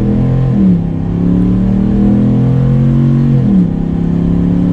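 Ram 1500's 5.7-litre Hemi V8, breathing through a K&N performance air intake, accelerating hard from a standstill toward 60 mph. The engine note climbs, drops at an upshift about half a second in, climbs again, and drops at a second upshift about three and a half seconds in before rising once more.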